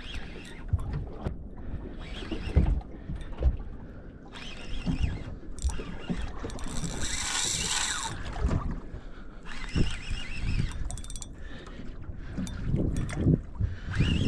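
Small fishing boat on open water: wind on the microphone with irregular knocks and thumps, and a louder rush of noise about seven seconds in.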